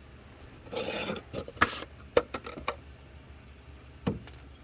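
Light handling noises from working in the engine bay: a brief rustle about a second in, then a few sharp clicks and knocks as the new serpentine belt and tools are handled.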